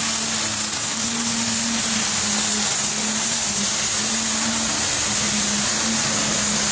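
Modified farm pulling tractor running flat out under load as it drags a weight-transfer sled, a loud steady engine note with a high steady whistle over it.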